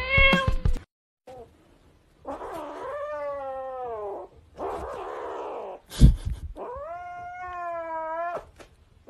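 A grey kitten yowling in two long, drawn-out cries, the first sliding down in pitch, with a rougher, noisier cry between them. A single sharp knock comes about six seconds in, and a brief snatch of music plays at the very start.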